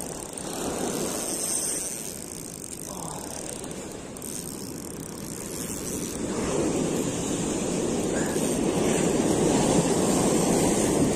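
Ocean surf washing up a sand beach, swelling louder about six seconds in as a wave breaks and runs up.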